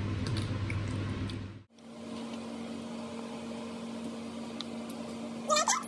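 Quiet room tone with a steady low hum that changes abruptly at an edit cut about a third of the way in. Near the end, a few short high whines glide up and down.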